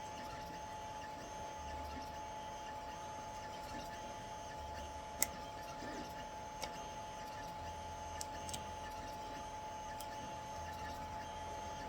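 A few small, sharp clicks of cured resin supports being snapped off a 3D-printed figure, the loudest about five seconds in. Underneath is a steady hum from a machine running in the room.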